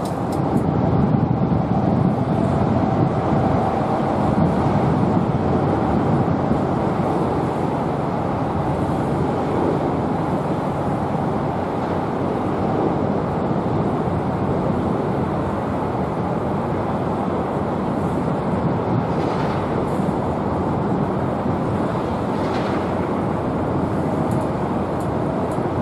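Steady rumble of road traffic on the bridge overhead.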